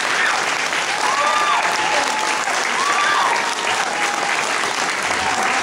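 Audience applauding steadily, with a couple of whooping cheers rising over the clapping, about a second in and again about three seconds in.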